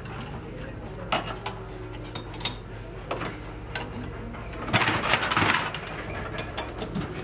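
Scattered metal clinks from work on a hydraulic pump clamped in a bench vise. About five seconds in comes a run of louder metallic clanks and rattles as a long steel bar is levered against the pump. A steady low hum runs underneath.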